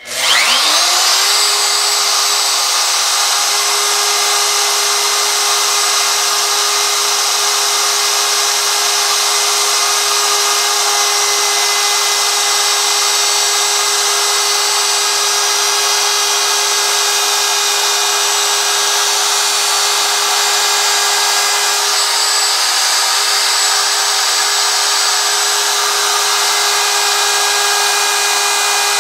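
DeWalt DW618 router switched on, its motor spinning up with a rising whine over about a second, then running at a steady high pitch while the bit cuts away the background wood of a carved sign.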